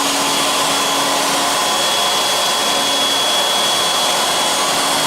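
Techno CNC router's spindle motor running at medium speed: a steady rushing noise with a thin high whine. A lower machine hum fades out about a second and a half in.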